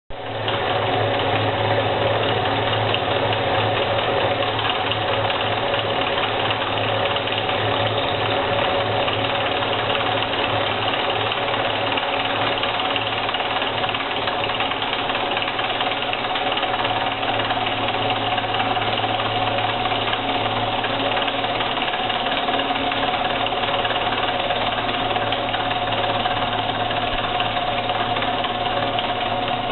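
Small milling machine running steadily while its cutter mills a crankpin for a 0.33 cc model diesel engine: an even mechanical whine over a low hum that starts right at the beginning and does not change.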